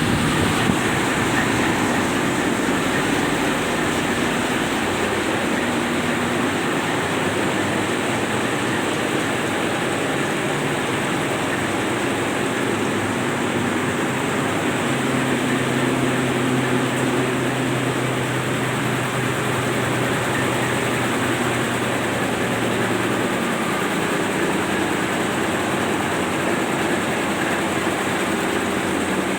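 Main diesel engines of a tugboat heard in its engine room: a loud, steady mechanical din with a low hum, the engines running at low revs so the turbochargers are not whining.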